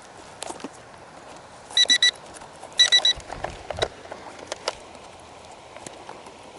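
An electronic beeper sounding two bursts of three quick high beeps, about a second apart, over a low steady hiss with scattered light clicks and a brief low thud.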